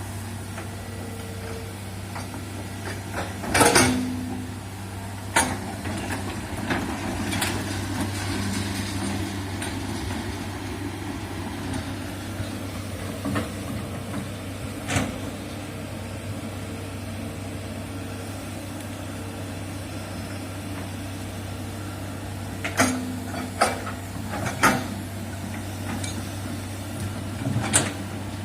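Hydraulic excavator's diesel engine running steadily while it digs a trench, with a series of sharp knocks, the loudest a few seconds in and a cluster near the end.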